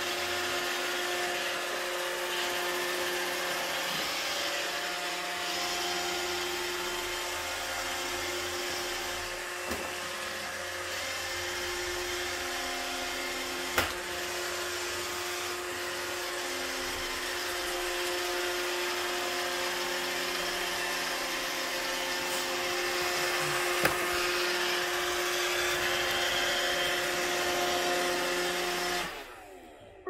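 iRobot Roomba 650 robotic vacuum running, a steady whirr of its vacuum and brush motors with a hum. It is broken twice by a sharp knock, about ten seconds apart, as its bumper hits obstacles. The running cuts off suddenly shortly before the end.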